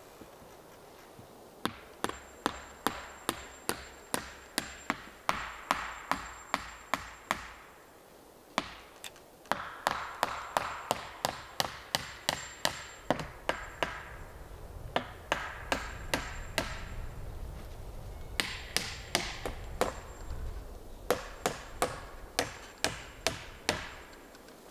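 Hammer driving nails into wooden boards, in runs of quick, evenly spaced blows, about two or three a second, with short pauses between the runs.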